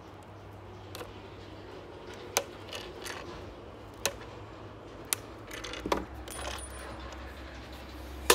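Screwdriver work on a battery pack's case, with a handful of sharp metallic clicks and clinks spread over several seconds, some ringing briefly, like screws or small tools knocking down onto a wooden table.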